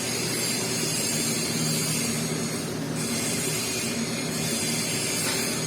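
Steady hiss from TIG welding on stainless steel pipe, with a faint low hum underneath.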